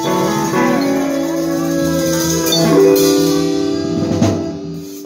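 Live band jamming: guitar chords held over drums, with a sharp hit about three seconds in and the sound dropping away near the end.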